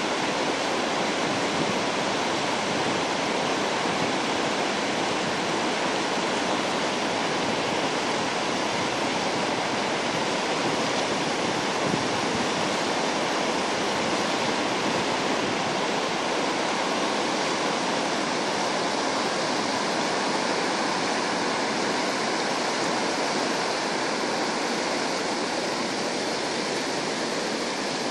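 River rapids rushing over boulders: a steady, even rush of white water that does not change.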